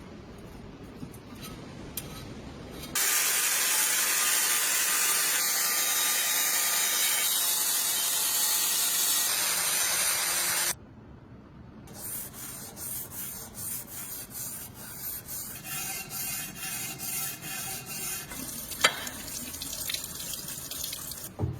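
A steady spraying hiss that starts about three seconds in, runs for about eight seconds and cuts off suddenly. After a short gap come quieter, quick rhythmic rubbing strokes, a few a second.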